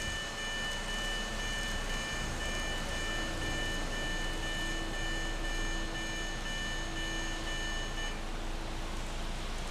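Electronic level-crossing warning alarm sounding as a steady high beeping tone, then cutting off suddenly about eight seconds in: the sign that the train has cleared the crossing. A steady hiss runs underneath, with a low hum from about three seconds in.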